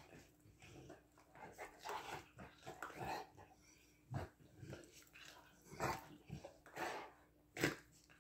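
A Greater Swiss Mountain Dog and a German Shepherd puppy play-fighting, making short, irregular dog noises and breaths in bursts. The loudest burst comes near the end.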